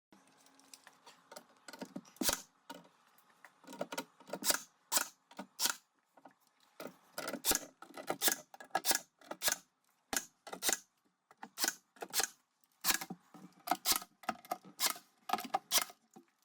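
Wooden shelf boards being handled and fitted against a frame: irregular sharp clicks and knocks, several to a second at times, with short gaps between runs.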